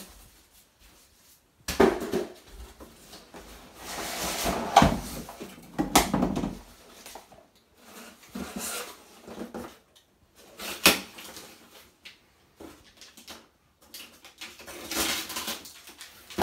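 Cardboard packaging being handled: inserts and flaps scraping and rustling against a box, with a few sharp knocks.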